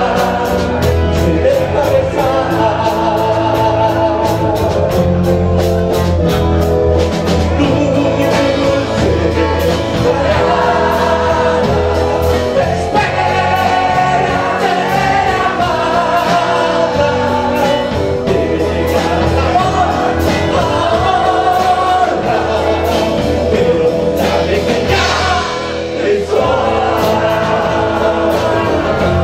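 Live rock band playing: a man sings into a microphone over electric guitars and a drum kit keeping a steady beat.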